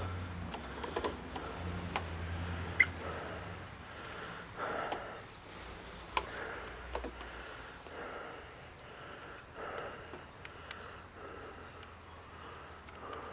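A person breathing hard after a bike ride, with a soft noisy breath every couple of seconds. A few sharp clicks sound in between.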